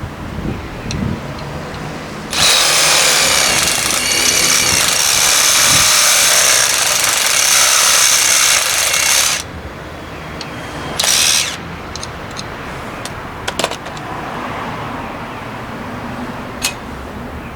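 Power drill running for about seven seconds, then a short second burst a moment later.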